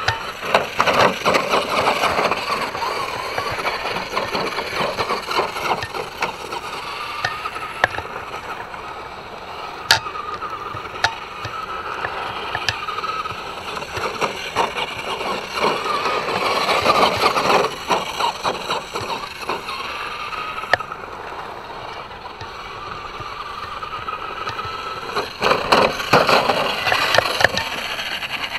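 Traxxas Slash 2WD RC truck's electric motor whining as it speeds up and eases off over and over, with its tyres crunching on dirt and gravel. There are sharp knocks, one clear one about ten seconds in.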